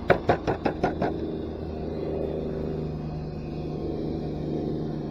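A rapid run of about six sharp clicks from a Tamiya FF-03 RC car as it is handled, followed by a steady low hum.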